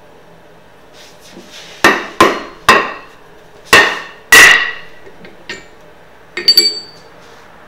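Hammer blows on the steel hot cut hardy seated in an anvil's hardy hole, each strike ringing briefly: three blows, then two heavier ones. Near the end there is a quick rattle of metallic clinks as the hardy's shank is worked out of the hardy hole.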